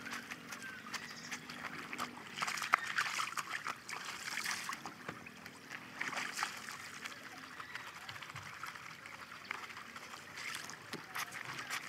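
Clothes being hand-washed in a shallow stream: splashing and dripping as wet cloth is wrung out, rubbed and dunked, over the trickle of running water. The splashing is busiest a few seconds in.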